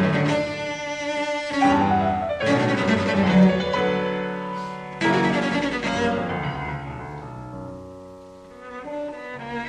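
Orchestral background music with bowed strings, cello and double bass, and piano, in swelling phrases that fade down near the end before picking up again.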